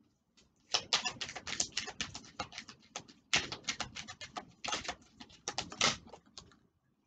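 A deck of oracle cards being shuffled by hand: two runs of rapid, crisp flicking, the second starting about three seconds in.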